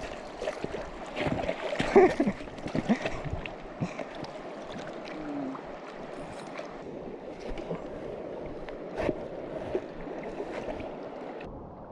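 River water running steadily, with scattered splashes and sharp knocks close by, busiest in the first few seconds.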